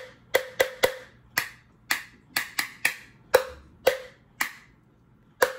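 A red plastic bowl struck with a small plastic knife: about a dozen sharp taps in a loose, uneven rhythm, each with a brief ring, then a short pause before more taps near the end.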